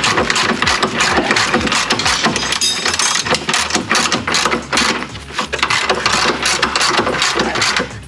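Ratchet wrench clicking rapidly and without a break as it turns a bolt on the front suspension arm mount.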